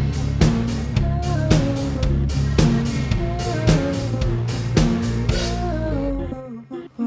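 A rock band playing live with a drum kit keeping a steady beat, bass and pitched melody. The song ends about six seconds in, then one final accented hit rings out and fades.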